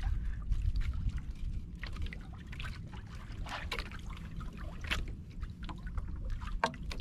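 Water lapping and trickling around a small fishing boat at sea, over a steady low rumble, with scattered light clicks and knocks as the hand line is worked.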